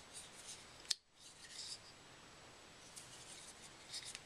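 Hogue EX01 folding knife being handled, with faint metallic ticks and one sharp click of the blade about a second in.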